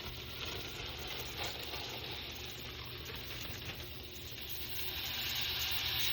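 Bacon and chopped peppers sizzling in a frying pan, a steady hiss that grows louder about four and a half seconds in.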